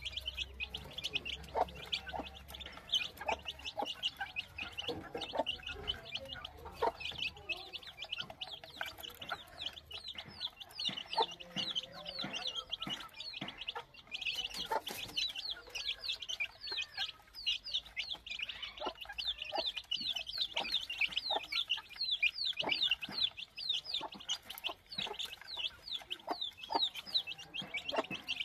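A group of young chicks peeping constantly, many short high falling peeps overlapping in a rapid stream, with scattered short clicks among them.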